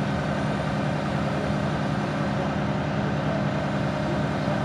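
Aerial ladder fire truck's diesel engine running steadily at raised speed, driving the hydraulics of the aerial ladder as it moves.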